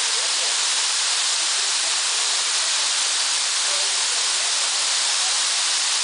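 Waterfall pouring down at close range: a steady, unbroken rush and hiss of falling water and spray.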